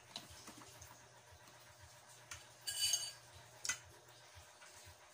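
Ladle clinking and scraping in a stainless steel pot of cooked shrimp. There is a ringing clink about three seconds in and a sharp click just after, with lighter clicks of shells being handled in between.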